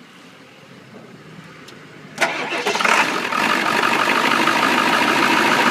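Starter motor cranking a Ford 7.3 diesel engine with a jumper connected to boost the supply voltage, kicking in about two seconds in with an even, steady rhythm and cutting off abruptly near the end.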